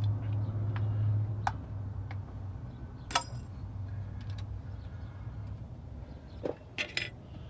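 Scattered metallic clicks and clinks of a hand tool working on an Edelbrock 1406 carburetor's fittings. The sharpest, ringing clink comes about three seconds in and a few more follow near the end, while a low hum fades out over the first two seconds.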